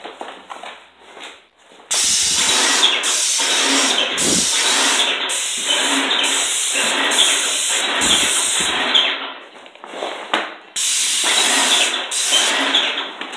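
Paint spray gun hissing as it sprays paint onto wooden slats. It goes in passes of about a second each, with brief breaks between them, starting about two seconds in and pausing for a longer moment about two-thirds of the way through.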